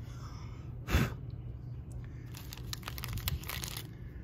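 Cardboard and styrofoam packaging of a trading-card box being handled and pulled open. There is a sharp crack or tear about a second in, then light clicks and rustling.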